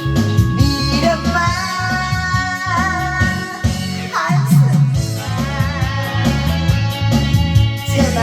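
Pop or rock music with a singer holding wavering notes over guitar, bass and a steady drum beat.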